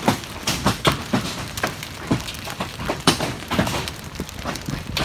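Large hailstones striking hard and irregularly, a few sharp cracks every second, over a steady hiss of the storm.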